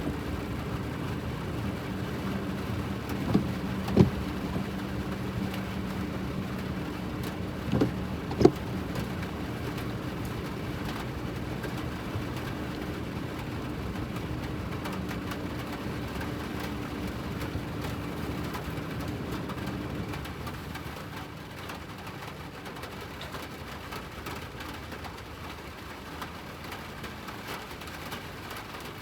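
Hydraulic excavator's diesel engine running with a steady hum, with sharp knocks about four and eight seconds in. The engine hum drops away about twenty seconds in, leaving a steady hiss.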